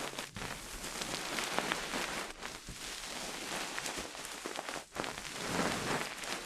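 Dense crackling rustle close on the microphone, a steady patter of many tiny clicks, made by an ASMR trigger worked against the mic.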